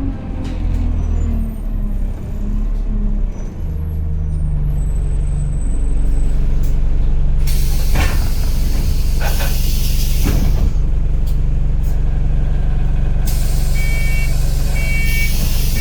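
Single-deck diesel bus (Alexander Dennis Enviro200 type) slowing, its engine pitch falling over the first few seconds before settling into a steady idle as it stops. Loud air hisses from the air brakes and doors come in bursts, and short repeated electronic door beeps sound near the end.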